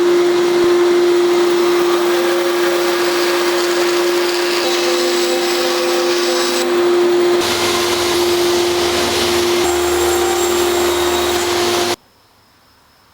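A woodworking power tool or shop machine running steadily, a hum with one strong steady tone over a noisy whir. It stops abruptly about twelve seconds in.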